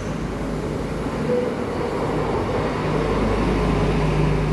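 A rail vehicle running through the station, a steady mechanical rumble with a low hum that grows louder about three seconds in.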